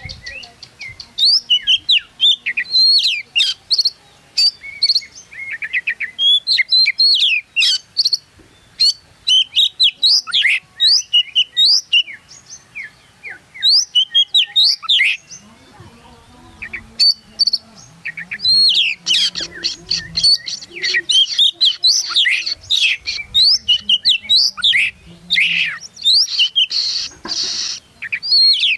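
Oriental magpie-robin (kacer) singing a loud, varied song of rapid whistled sweeps and chattering notes in dense bursts, with a quieter lull about twelve to eighteen seconds in.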